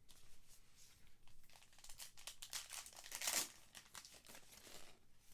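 Trading card pack wrapper crinkling and tearing as it is opened, a dense crackle that grows loudest in the middle.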